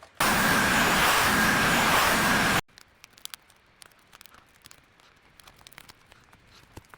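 A loud, steady rushing hiss with a faint whistle-like tone in it lasts a couple of seconds and cuts off suddenly. Then come small scattered clicks and taps.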